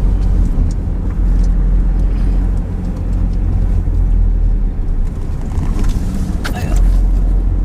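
Car driving, heard from inside the cabin: a steady low engine and road rumble, with a brief click about six and a half seconds in.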